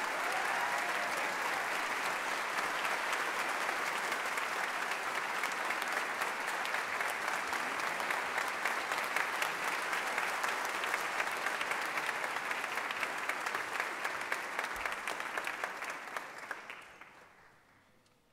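Audience applauding, many hands clapping steadily, then dying away near the end as the piano soloist takes her seat.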